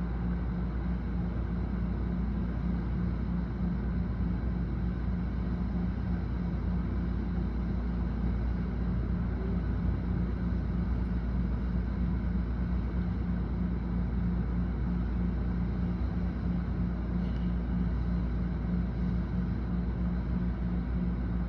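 Heavy thunderstorm rain and wind, a steady low rumble with a rushing hiss of rain above it.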